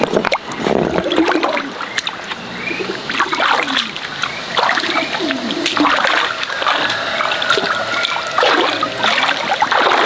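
Shallow stream water splashing and trickling as stones are worked loose and lifted out of it by hand, with short knocks and clatters among the rocks.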